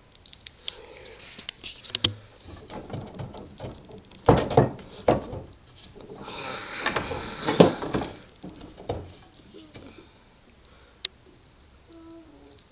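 Loose wooden stair-rail spindle knocking and rattling as it is shaken by hand: it is poorly set and coming off. There are scattered knocks, a loud cluster about four to five seconds in, a longer rattle a little later, and a single sharp click near the end.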